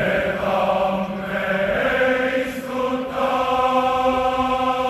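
A large massed choir singing long held chords in the open air; the harmony moves to a new chord about three seconds in.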